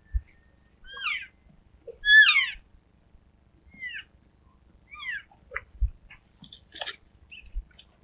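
Elk calling: a series of about five short, high, squealing calls that slide downward in pitch, spaced a second or so apart, the loudest about two seconds in. A few low thumps and clicks fall between them.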